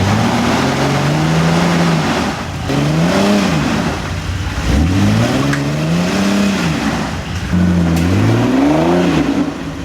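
Lifted off-road Jeep's engine revving in several bursts of throttle, pitch climbing and falling each time, as it crawls over an obstacle.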